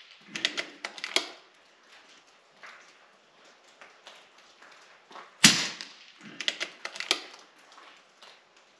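KalibrGun Cricket II .22 PCP bullpup air rifle: a quick run of metallic clicks as the sidelever is cycled to chamber the next pellet, one sharp shot about five and a half seconds in with a short echo, then the sidelever cycled again with another run of clicks.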